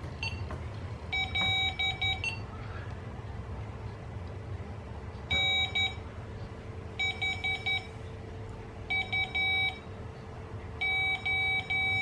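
Arduino-based Morse code practice oscillator sending random letters in Morse through a small speaker at 9 words per minute: groups of short, steady-pitched beeps about two seconds apart. The groups spell N, then H (four short beeps), then U (two short beeps and a long one), with a first group about a second in and another near the end.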